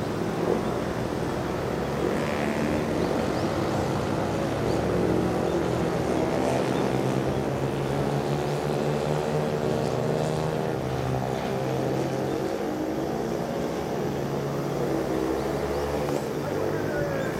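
A motor vehicle engine running steadily, its drone wavering slightly up and down in pitch.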